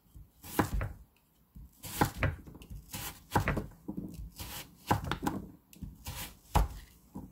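Chef's knife chopping raw Korean radish into cubes, each cut ending in a knock on a wooden cutting board: about ten chops, unevenly spaced.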